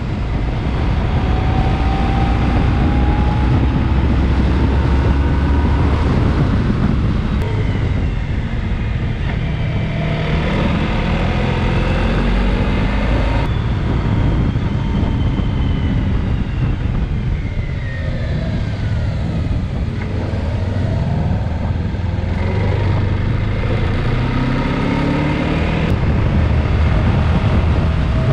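Honda ST1300 Pan European's V4 engine running under way, its pitch rising and falling as the bike accelerates and slows, over a heavy rumble of wind on the microphone.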